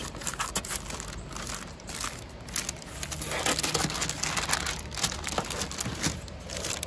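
Parchment paper crinkling and rustling in irregular crackles as crescent roll dough is unrolled and pressed flat on it, over a low steady wind rumble.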